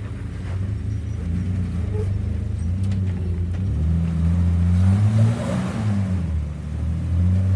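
Lifted Jeep TJ's engine working as it crawls up a sandstone ledge, the revs rising to their peak about five seconds in and then easing back. A brief rush of noise comes with the peak.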